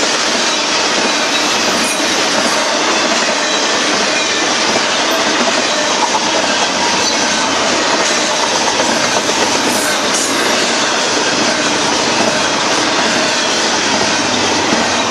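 Union Pacific double-stack intermodal freight cars rolling past: the steady, loud rumble and rattle of steel wheels on rail, with clickety-clack over the rail joints and faint wheel squeals.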